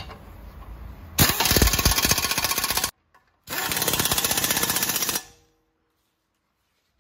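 Pneumatic impact wrench hammering on a bolt in two bursts of under two seconds each, with a short gap between them.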